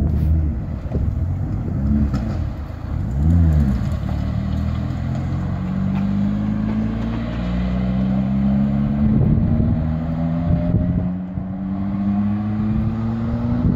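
Ford Escort RS Cosworth race car's turbocharged four-cylinder engine revving up and back down twice in the first few seconds. From about five seconds in it makes a long pull with the pitch climbing steadily, broken by rough fluttering patches of wastegate chatter.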